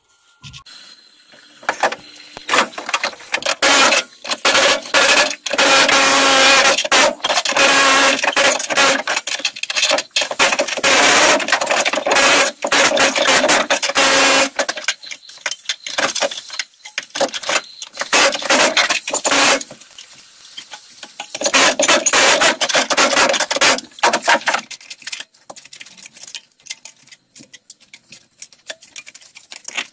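Pneumatic air chisel hammering through a rusted sheet-metal floor pan, cutting out rotted sections of plate. It runs in loud bursts of a few seconds with short pauses, and goes quieter and more broken in the last few seconds.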